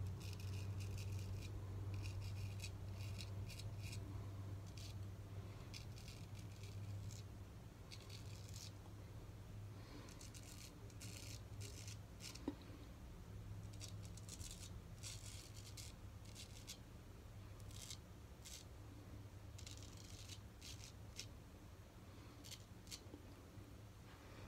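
Straight razor scraping through lathered stubble in short strokes: a faint crackling rasp that comes in clusters, over a low steady hum.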